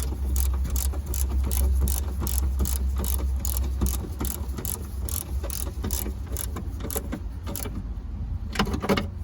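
Ratchet wrench clicking in quick, regular strokes, about three a second, as a trunk-lock fastener is tightened; the clicking stops near the end. A low hum underneath fades out about four seconds in.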